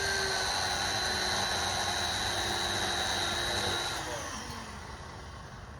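Chainsaw running at high revs, a steady high whine, then eased off about four seconds in as the pitch drops and the sound gets quieter.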